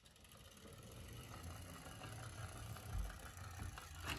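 Plastic wheels of a toy ladder fire truck rolling down a plywood ramp: a faint low rumble that grows louder, with a bump about three seconds in.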